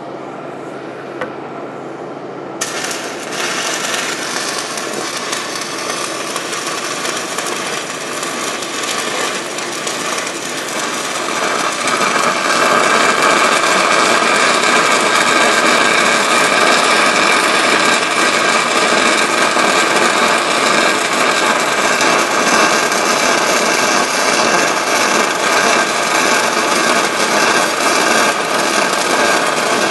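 Stick (SMAW) welding arc from a 1/8-inch E6010 electrode at about 80 amps, running a root pass on 6-inch schedule 40 steel pipe. The arc starts suddenly about two and a half seconds in and runs steadily, louder from about twelve seconds in.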